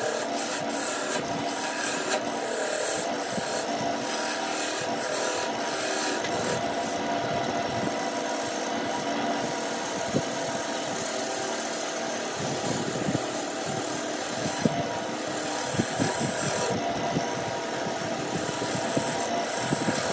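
Wood lathe spinning a vase-shaped blank while a hand-held turning tool cuts it: a steady scraping hiss of the steel peeling shavings off the wood over a constant machine hum. The cutting hiss eases briefly a few times.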